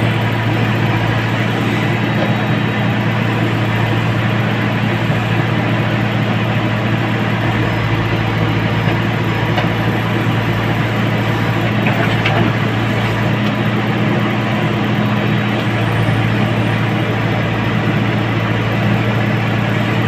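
JCB 3CX backhoe loader's four-cylinder diesel engine running steadily at an even pitch while the backhoe arm digs, heard from inside the operator's cab.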